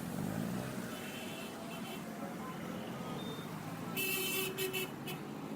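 Street ambience at a busy roadside bus stop in Lagos: steady traffic noise with faint, scattered voices of people around the stop. About four seconds in there is a short, louder burst.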